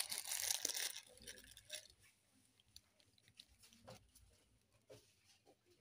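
Crinkling of plastic soap wrappers as a hand pulls a pack from a stack on a shelf, loudest in the first second, followed by faint scattered taps and rustles.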